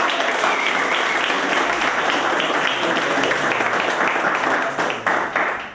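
A group of people applauding, many hands clapping together.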